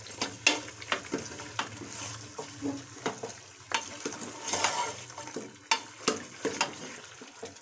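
Wooden spoon stirring meat and marrow shank bones browning in oil in an aluminium pressure cooker: irregular knocks of spoon and bones against the pot over a faint sizzle.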